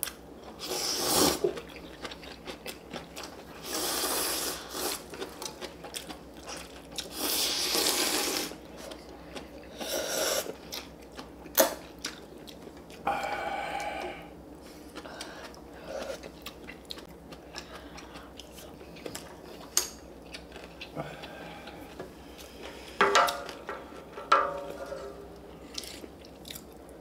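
People eating ramen: several long noisy slurps of noodles or broth, with chewing and a few sharp clicks between them.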